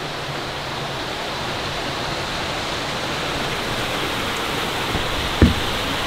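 Steady rushing of a waterfall, growing slightly louder, with a single short knock near the end.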